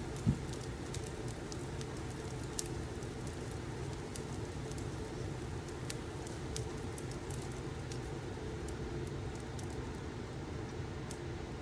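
Fireplace crackling: irregular sharp pops and snaps over a steady low rumble, with one soft low thump just after the start.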